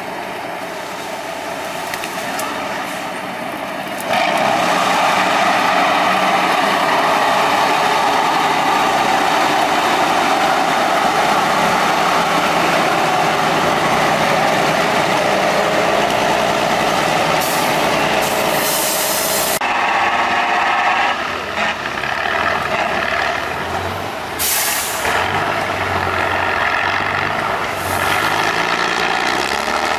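Heavy off-road trial trucks' engines running hard as they work up a steep slope, getting much louder about four seconds in. Short bursts of air hiss from the trucks' air brakes come in around the middle and twice more near the end.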